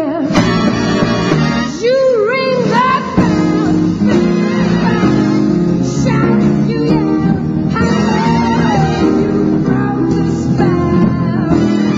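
Background music: a song with a singing voice, most prominent in the first few seconds, over a steady instrumental accompaniment.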